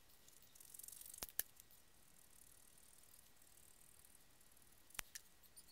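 Scissors cutting thin 3 to 5 ounce leather, mostly very quiet: a brief high hiss of the blades through the leather, then two sharp snips about a second and a half in, and two more near the end.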